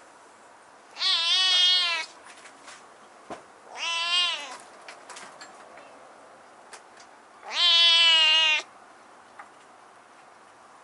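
Tabby kitten meowing three times in a husky voice. The first and last meows last about a second each; the middle one is shorter.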